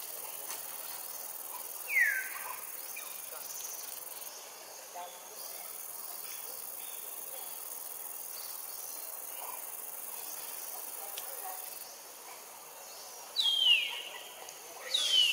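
Forest ambience: a steady high insect drone, with a falling whistled call about two seconds in and two more near the end.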